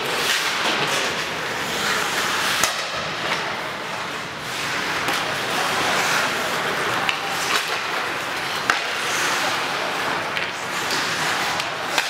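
Ice hockey play: skate blades scraping across the ice with a steady hiss, broken by a few sharp clacks of sticks and puck.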